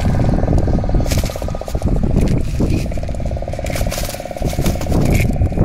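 A steady, fast-pulsing motor buzz over wind rumbling on the microphone, with scattered clicks and scrapes.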